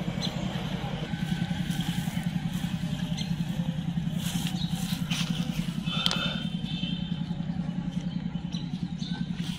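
A small engine running steadily with a low, fast, even pulse throughout. About six seconds in there is a brief high chirp.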